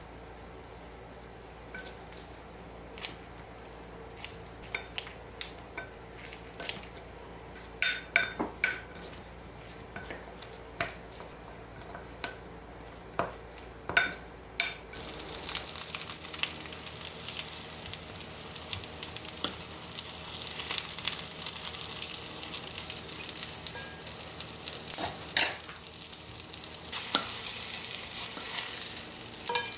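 A wooden spatula clicking and scraping against a glass dish while tossing seasoning through shishito peppers. About halfway through, this gives way to steady sizzling as stuffed shiitake mushroom patties fry in oil in a pan, with a few knocks of the wooden spatula.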